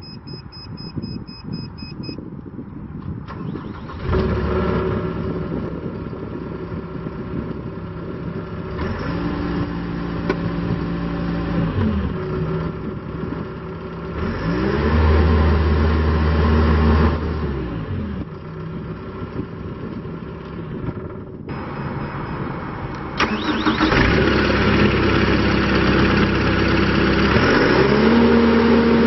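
A Gehl RT250 compact track loader's diesel engine. A rapid electronic beeping runs for the first two seconds, then the engine is started about three seconds in and keeps running, revved up and back down several times.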